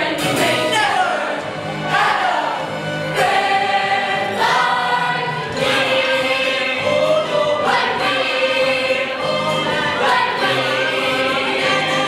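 Youth musical-theatre ensemble singing a song together over instrumental accompaniment with a steady beat.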